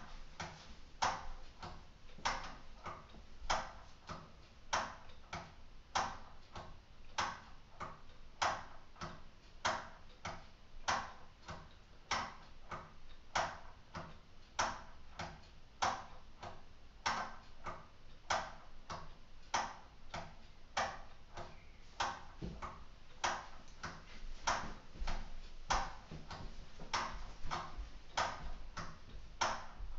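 Escapement of a purely mechanical LEGO Technic clock ticking steadily, an even run of sharp plastic clicks.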